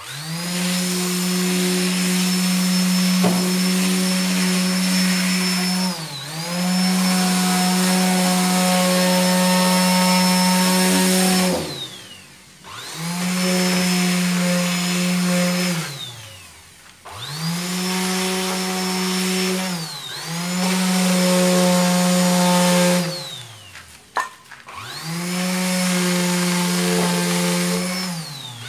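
Electric orbital finishing sander running against a wooden window frame, a steady motor hum over a sanding hiss. It is switched off and on again several times, its pitch falling as it winds down and rising as it spins back up.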